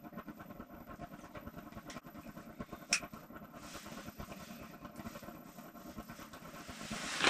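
Faint steady hum and hiss of a small room, with a single sharp click about three seconds in and a rustle building near the end.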